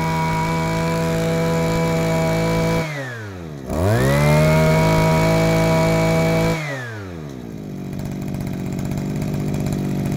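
Makita EM256 two-stroke brush cutter engine running at full throttle, dropping to idle about three seconds in, revved straight back up to full throttle, then let back down to idle for the last few seconds.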